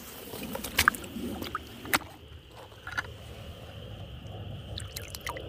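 Water sloshing and splashing as someone moves through shallow water, with a few sharp knocks about one and two seconds in, over a steady high-pitched drone.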